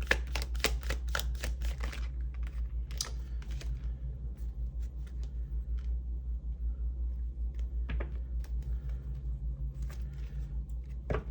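Tarot cards being shuffled, a dense run of rapid clicks for about two seconds, then sparser taps and flicks of cards being handled and drawn. A steady low hum runs underneath.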